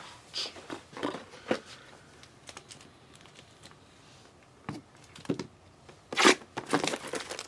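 Foil trading card pack wrappers crinkling and tearing as packs are opened, with scattered light taps and rustles of cards being handled. The loudest crinkling comes about six seconds in.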